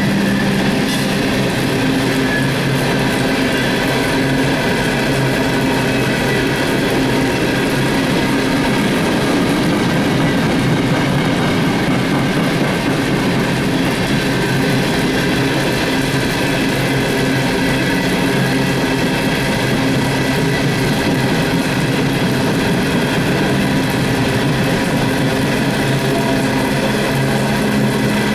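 Empty CSX coal hopper cars rolling past on steel rails, a steady rumble of wheels on track mixed with heavy rain.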